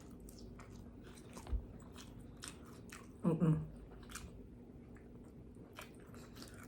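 Close-up mouth sounds of someone eating pizza: scattered wet chewing and smacking clicks, with a brief voiced sound about three seconds in.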